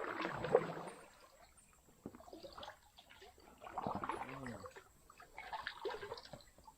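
Shallow water sloshing and trickling in irregular surges of a second or so, several times.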